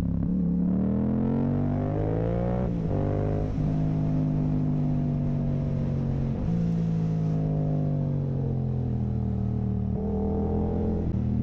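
Yamaha R7's 689 cc parallel-twin engine through an Akrapovic full carbon racing exhaust with its dB killer removed, pulling under load: the revs climb, drop sharply at a gear change about three seconds in, then hold and slowly fall. Near the end the revs rise briefly and drop again.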